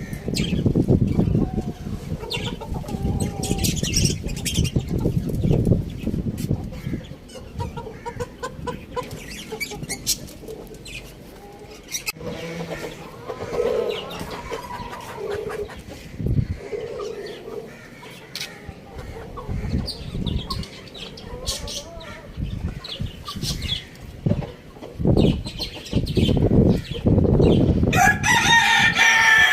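Chickens clucking, with a low rumbling noise in the first few seconds, and a rooster crowing loudly near the end.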